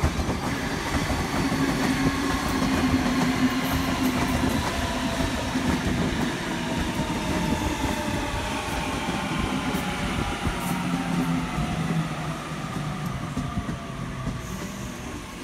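Sydney Trains Waratah (A set) double-deck electric train running past, its traction motors giving a whine that falls slowly in pitch, the sound easing off near the end.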